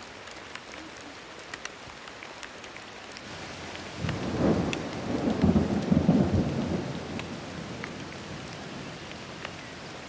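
Heavy rain falling steadily, with scattered drops ticking. About four seconds in, a roll of thunder rumbles up, peaks and fades away over about three seconds.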